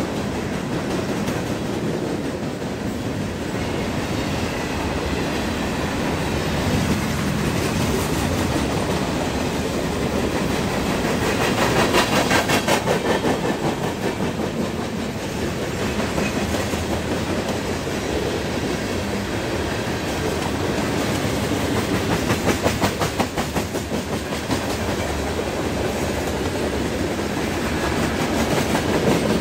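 CSX mixed freight train's cars rolling past at a grade crossing: a steady rumble of steel wheels on rail with rhythmic clickety-clack over the rail joints, louder runs of clacking twice, near the middle and about three-quarters through.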